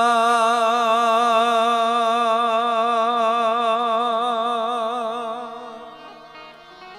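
A man's singing voice holding one long note with a strong, even vibrato, fading out after about five and a half seconds: the sustained final vowel of a line of a Gujarati devotional folk song.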